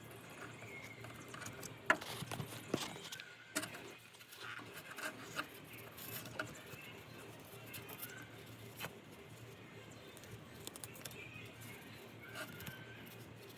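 Faint handling noises of cloth electrical tape being wrapped around a part: scattered small clicks, ticks and rustles over a faint steady low hum.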